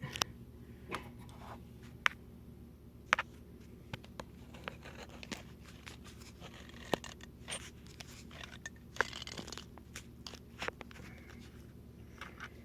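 Small, scattered clicks and scrapes of handling a metal banjo capo while working a fret pad into it, with a brief crinkly rustle about nine seconds in. A steady low hum runs underneath.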